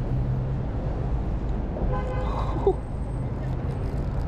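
Street traffic with a vehicle engine humming steadily, and a car horn giving one short toot about two seconds in.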